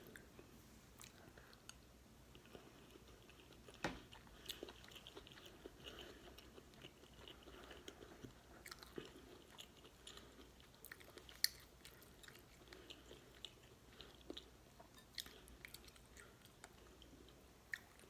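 Close-miked chewing of beef stew and cornbread: soft, wet mouth sounds with scattered sharp clicks, two of them standing out about four seconds in and near the middle.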